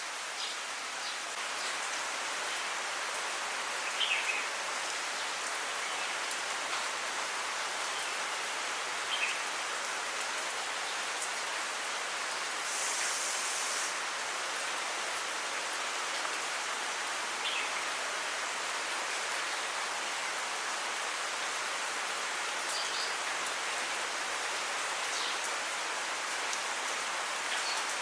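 Heavy monsoon rain falling steadily, an even hiss, with a few short high sounds now and then.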